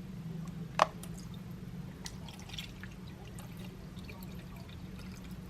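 Water poured and dribbling into a small coffee maker's reservoir, with a sharp click about a second in and a steady low hum underneath.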